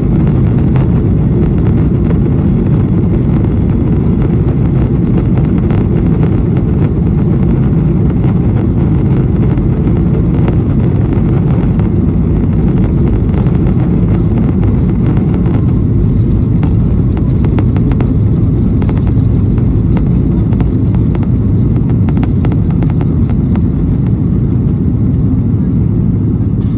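Boeing 737-800's CFM56-7B turbofan engines at takeoff thrust during the takeoff roll, heard inside the cabin over the wing: a loud, steady deep rumble with light rattles and clicks from the runway.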